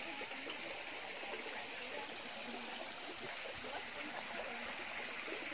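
Water of a small waterfall and stream running steadily.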